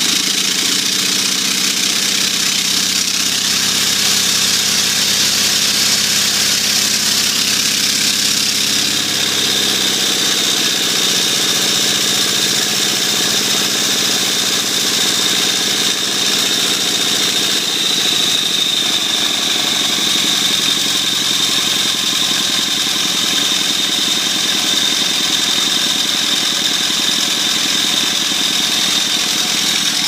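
Single-cylinder 8 hp gas engine converted to run on steam, running and driving an induction motor, with its exhaust steam blowing off in a loud, steady hiss. A steady high whine sits over the hiss.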